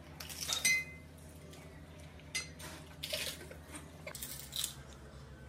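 Small glass bowls and dishes clinking on a glass tabletop as pani puri shells are dipped and handled: one short ringing clink just under a second in, then a few softer clicks and knocks.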